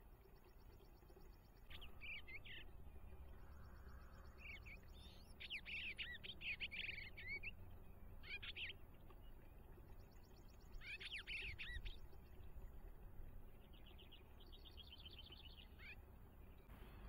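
Eastern bluebird singing faintly: several short runs of soft warbled phrases, with a faint fast high trill in the background between them.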